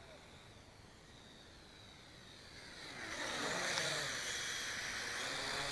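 Propel Spyder XL quadcopter's motors and propellers whirring in flight, faint at first, then louder from about halfway as it comes closer, with the pitch of the whine sliding down and back up.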